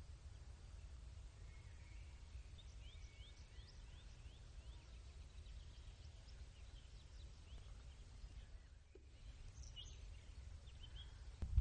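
Faint small-bird chirping, a run of quick short notes from about a second and a half in, over a steady low background rumble.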